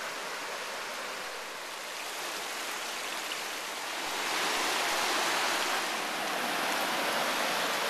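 Rushing river water running over rocks and through small rapids: a steady rush that grows a little louder about four seconds in.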